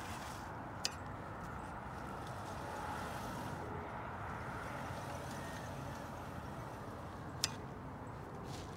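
Traxxas TRX-4 RC crawler pushing through deep dry leaves and brush: a steady rustling, crunching noise, with two sharp clicks, one about a second in and one near the end.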